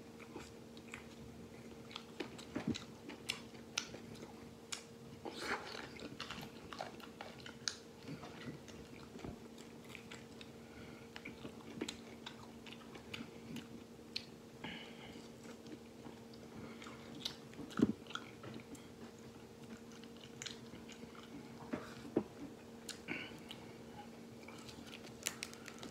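A man biting and chewing braised duck wings held in his hands, with many short sharp clicks at irregular intervals.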